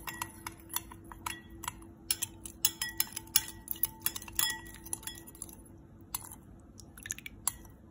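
Metal spoon clinking against a small glass bowl while stirring a thin sauce of soy sauce, oyster sauce, sugar, cornstarch and water, in quick irregular taps that thin out over the last two seconds or so.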